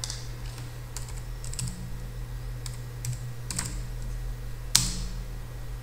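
Typing on a computer keyboard: a dozen or so scattered keystrokes at an uneven pace, with one louder click near the end, over a steady low hum.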